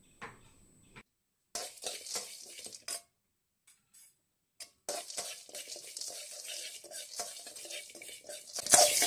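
Steel spoon stirring and scraping urad dal, cashew pieces and peanuts around a metal wok as they dry-roast without oil, with clinks of spoon on pan. It comes in a short stretch and then a longer one after a silent gap, and grows louder near the end.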